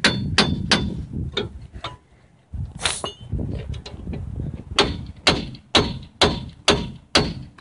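Hammer blows on the steel parts of a Dana 30 front axle, knocking a stuck part loose. They come in two runs of sharp ringing strikes, about two a second, with a short pause and a single ringing clang between them.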